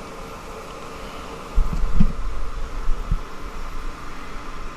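Goodman heat pump outdoor unit running steadily with a compressor hum, just after its defrost cycle has been ended and the reversing valve has switched back over. About a second and a half in, a low rumble and a knock rise for a second or so.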